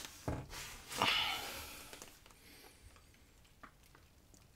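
Faint handling noise as glass seasoning jars and a sauce bottle are lifted out of bubble wrap in a cardboard box: a soft rustle about a second in that fades away, then a couple of light clicks.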